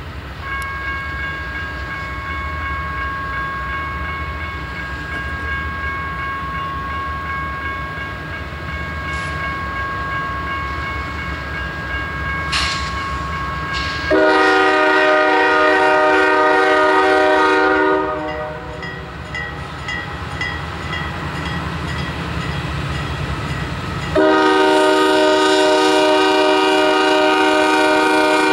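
Four-locomotive CSX diesel freight train approaching, its engines rumbling under a faint steady whine, then the lead locomotive's air horn sounding two long blasts, the first about 14 seconds in and the second about 24 seconds in. Between the blasts comes a short repeating tone about twice a second.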